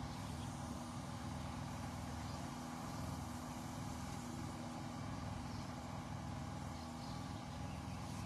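An engine running steadily at a constant speed, a low even hum with steady tones and no change in pace.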